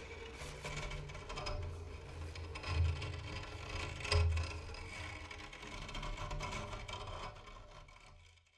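Experimental soundtrack of scraping, clicking textures, with two low thuds, fading out near the end.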